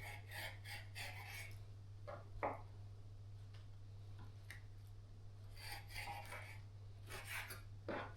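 Cabbage leaves being handled and cut in the kitchen: faint rustling and scraping in several short spells, with one sharper knock about two and a half seconds in, over a steady low hum.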